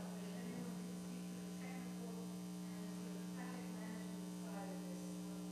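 Steady electrical mains hum from the microphone and sound system, with faint, distant speech under it.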